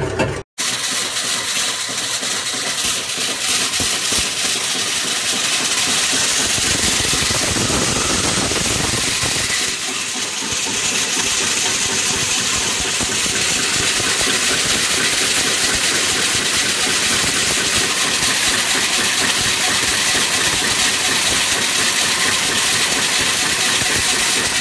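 Homemade Stirling engine running steadily under load from a friction dynamometer brake on its flywheel, its moving parts making a fast, even clatter.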